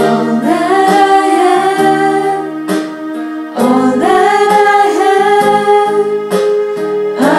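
A hymn sung with electronic keyboard accompaniment, the voice holding long notes, with a short break about halfway through before the next phrase.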